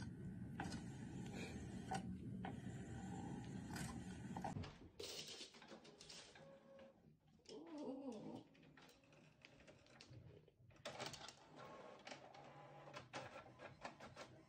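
A small electric motor hums steadily with light ticking, from a cat head massager running. It stops after about four and a half seconds. A short whine comes near the middle, and a run of faint rapid clicks follows near the end.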